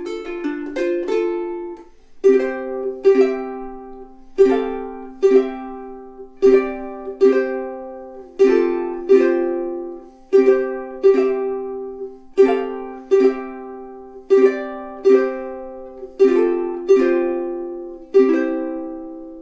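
Kiwaya KPS-1K all-solid koa soprano ukulele strummed in slow chords: two strums about every two seconds, each chord left to ring out, after a few quicker strums in the first two seconds.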